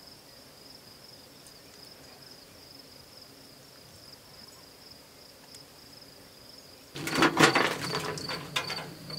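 Crickets chirping steadily at night. About seven seconds in, a loud metallic clatter of knocks as a folding two-burner camp stove's lid and side windscreens are swung open and handled.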